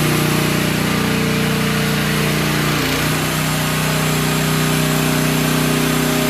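Mini excavator's 420cc Briggs & Stratton single-cylinder gasoline engine running steadily while the machine turns on its tracks. The engine note dips briefly about three seconds in, then runs steady again.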